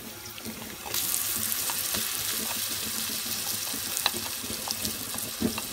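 Ground spices and ginger-garlic paste dropping into hot oil and fried onions in a pot, sizzling; the sizzle jumps up about a second in and holds steady, with a few light clicks.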